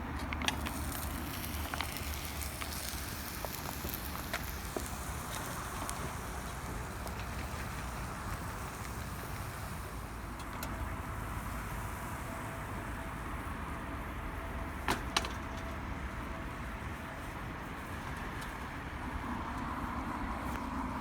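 Wood pellets burning in a Solo Stove: a steady rushing noise with scattered sharp crackles, two of them close together about fifteen seconds in.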